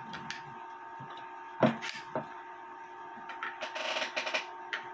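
Small metal clicks and knocks of a watchmaker's lathe tailstock being handled and set on the lathe bed. The loudest knock comes about a second and a half in, with a short scraping rattle near four seconds. A faint steady hum runs underneath.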